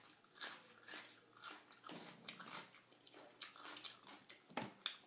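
Faint chewing of a mouthful of spicy raw shrimp salad. It comes as short repeated chews, about two a second, with one sharper click near the end.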